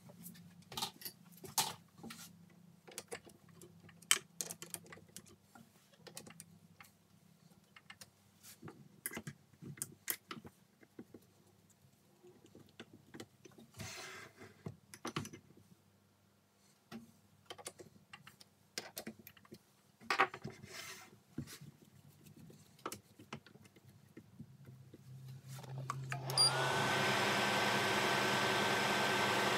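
Scattered metallic clicks and clunks of a small metal lathe's slides and tailstock being handled over a faint hum. About 26 seconds in, the lathe's motor switches on and the chuck spins up, then runs steadily with a whine that rises and levels off.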